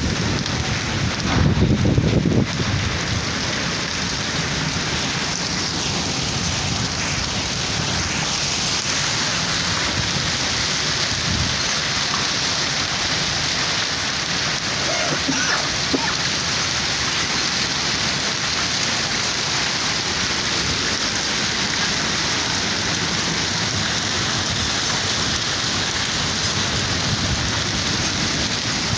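Heavy rain falling steadily on hard ground, a constant hiss with no break. In the first couple of seconds a low rumble rises over it.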